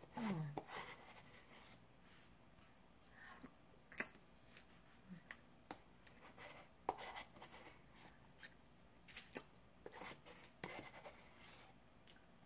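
Metal spoon scraping and digging through cookies-and-cream ice cream in a cup: faint scratching with scattered soft clicks and taps, plus quiet mouth sounds of eating. A brief low hum falls in pitch right at the start.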